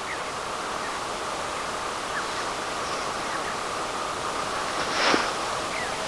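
Steady outdoor noise with a few faint, short chirps scattered through it, and one louder, sharp sound about five seconds in.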